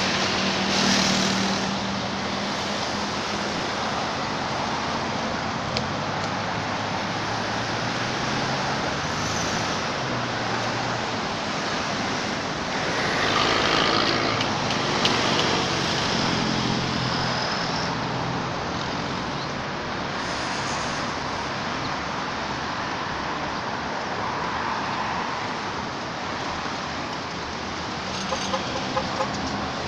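Road traffic going by: a steady hum of passing vehicles, with engines swelling louder about a second in and again around thirteen to sixteen seconds in.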